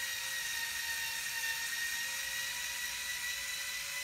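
Small electric screwdriver whining steadily as it drives an M3 grub screw into a 3D-printed plastic part, the screw cutting its own thread in the plastic by friction as it goes in.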